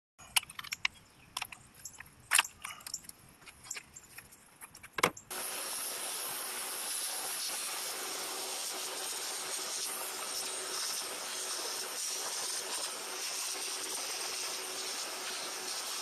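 Sharp clicks and knocks of a fuel rail and its injectors being worked loose by hand, the loudest about two and a half and five seconds in. From about five seconds in, a steady hiss with a faint hum takes over.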